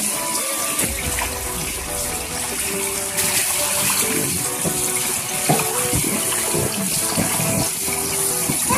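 Steady rushing and splashing water, as at a water park's slides and sprays.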